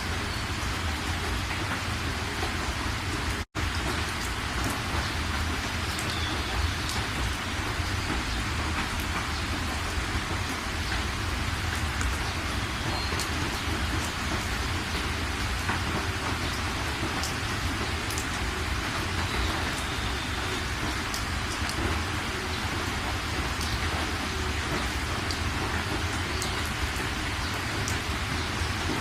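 Steady rain falling, with scattered individual drops ticking, cut by a momentary dropout to silence about three and a half seconds in.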